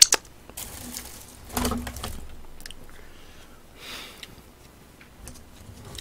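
Close-miked eating noises: a sharp wet smack at the start as fingers are sucked clean, then scattered chewing and short rustles.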